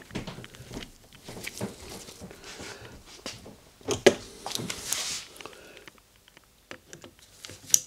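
Workshop handling noise: gloved hands pressing and rubbing epoxied scales onto a knife tang clamped in a vise, with scattered small knocks and one louder knock about four seconds in. A quick run of sharp clicks near the end as a driver goes onto the handle bolts.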